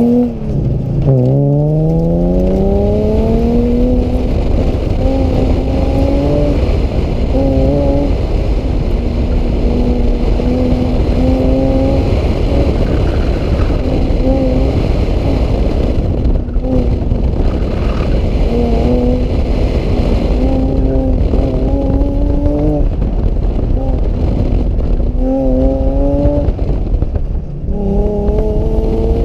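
Infiniti G35's 3.5-litre V6 driven hard on an autocross run, heard from the cockpit: it launches and revs up steeply about a second in, then keeps rising and falling as the driver accelerates, lifts and brakes between cones, with short lifts near the middle and near the end.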